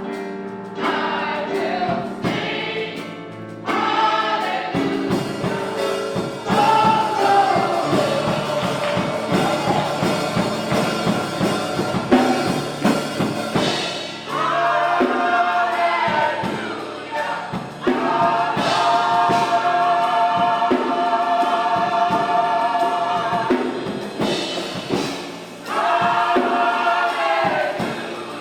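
Church choir singing gospel music with instrumental accompaniment, in long held phrases.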